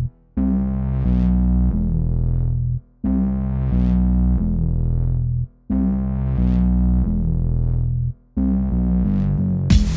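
Background music: sustained chords in phrases of about two and a half seconds, each cut by a brief silence. Near the end a fuller, noisier section with sharp hits begins.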